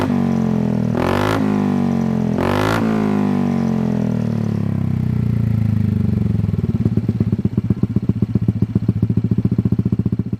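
Motorcycle engine through a Shijiro aftermarket racing exhaust, blipped twice in quick succession in the first few seconds, then falling back to a loud, choppy idle with an even pulsing beat.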